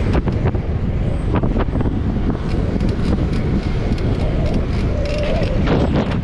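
Wind buffeting a GoPro's microphone on a moving bicycle, a loud steady rumble with tyre and road noise from the street beneath, and short rattling clicks scattered through it. A brief steady hum comes in about five seconds in.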